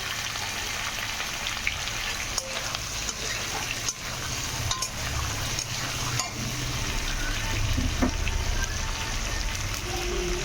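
Food sizzling and crackling in hot oil in a cooking pot, a steady frying hiss with scattered sharp clicks.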